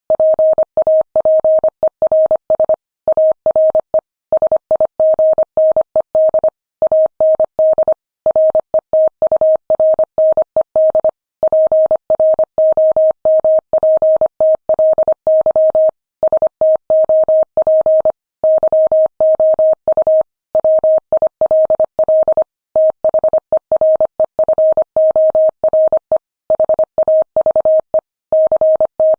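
Morse code at 25 words per minute: a single steady beep keyed on and off in rapid dots and dashes, with brief pauses between words.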